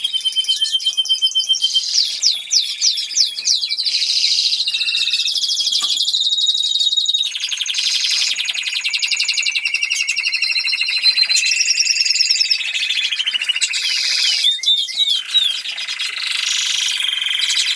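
Norwich canary singing a long, unbroken song of rapid trills, switching from one trill to another of a different pitch every second or two.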